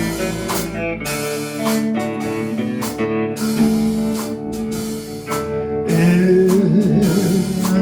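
Country band playing an instrumental intro led by plucked guitar notes, with a sustained wavering melody line coming in about six seconds in.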